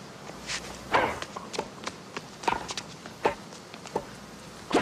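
Tennis rally on a hard court: sharp pops of racquets striking the ball and the ball bouncing, the loudest about a second in as the serve is hit, then further hits every second or so.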